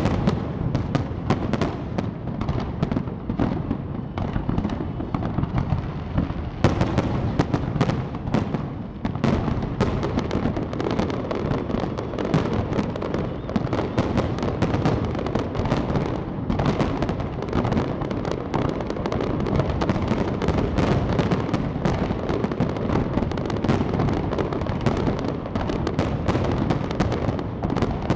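Large aerial fireworks display: a constant barrage of bangs and crackles over a steady rumble of explosions, growing denser after about seven seconds.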